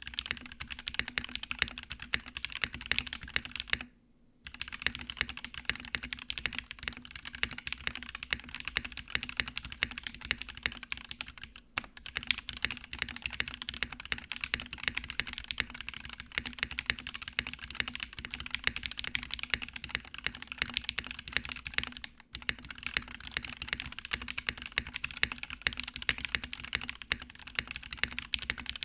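Fast, continuous typing on a mechanical keyboard with lubed Gateron Black Ink V2 linear switches, PBT keycaps and a POM plate in a polycarbonate case. The keystrokes come as a dense stream of clicks, broken by short pauses about four, twelve and twenty-two seconds in.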